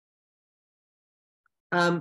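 Dead silence from a gated video-call audio feed, then a voice resumes talking near the end.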